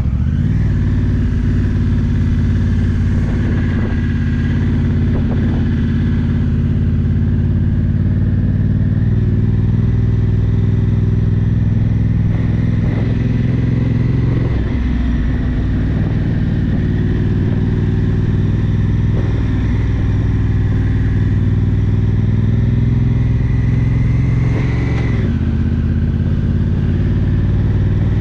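Honda Africa Twin's 998 cc parallel-twin engine running steadily under way on a dirt track, with a dual-clutch automatic gearbox. The engine note drops sharply once near the end.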